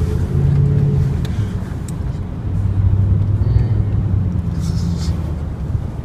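Car running at low speed: a steady engine hum over road rumble, the engine note shifting in pitch a few times as the car slows.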